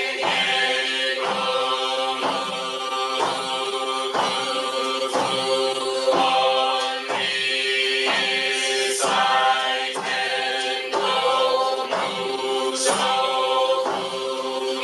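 Group of voices chanting in unison on a steady monotone, as in a Zen Buddhist service, with a struck beat keeping time about every three-quarters of a second.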